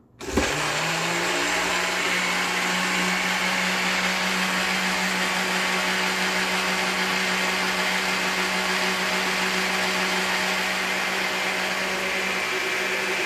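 Countertop blender switched on about half a second in, its motor quickly coming up to speed and then running steadily, pureeing a liquid soursop sauce mixture.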